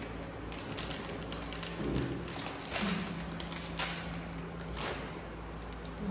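A plastic snack packet crinkling and crackling as hands handle it and tear it open, in short sharp bursts, loudest nearly four seconds in. A steady low hum runs underneath.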